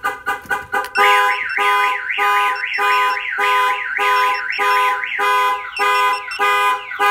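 Clifford 5305X vehicle alarm siren going off, set off by the door being opened. A quick run of rapid chirps in the first second gives way to a multi-tone siren whose sweeping tones repeat about twice a second.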